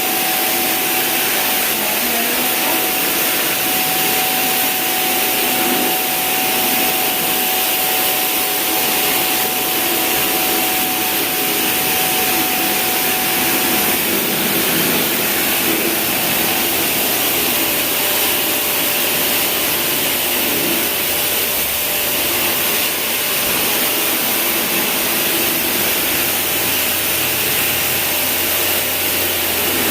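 A motor-driven cleaning machine running steadily with a loud hissing rush, with no break. A faint whine within it drops slightly in pitch about halfway through.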